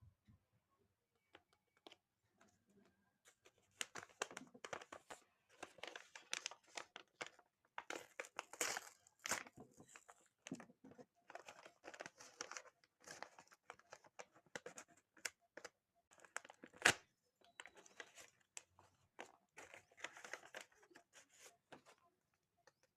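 Hands tearing open and crinkling the wrapper of a blind bag: an irregular run of crackles and rustles that starts a few seconds in, with one sharper snap about two-thirds of the way through.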